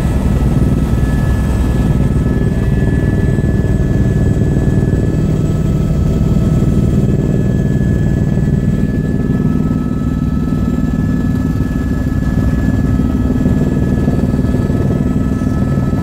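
Helicopter in cruise flight heard from inside the cabin: a steady, loud low drone of rotor and engine, with thin steady high whine tones above it.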